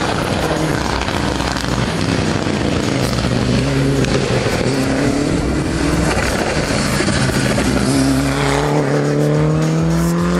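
Race car engine working hard up a hillclimb course: the revs climb, drop back about halfway through, then rise steadily through the last couple of seconds as the car accelerates out of a hairpin.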